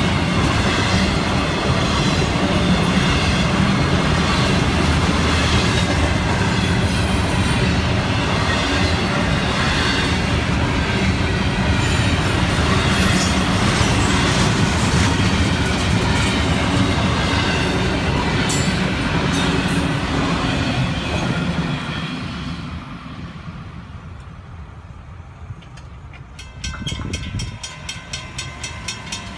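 Florida East Coast Railway double-stack intermodal freight cars rolling past with a steady, loud rumble and wheel clatter, fading away about 22 s in as the end of the train goes by. Near the end, a grade-crossing warning bell rings rapidly while the gates lift.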